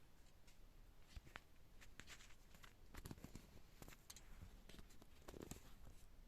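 Near silence with faint, scattered light clicks and soft scrapes of small handling noises.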